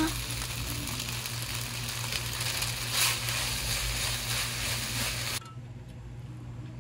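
Fried rice with pineapple and duck sizzling in a frying pan as it is stirred with a spatula. The sizzle cuts off suddenly about five seconds in, leaving a much quieter background with a few faint clicks.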